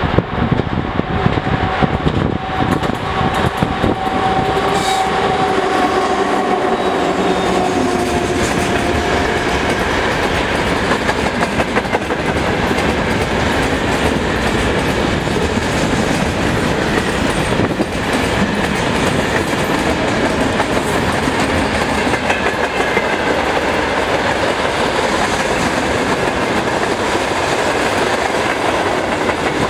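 A 2TE116 twin-section diesel freight locomotive passes, coasting downhill with its diesels at idle, and is followed by a long freight train of gondola cars whose wheels clatter steadily over the rail joints at about 60 to 65 km/h.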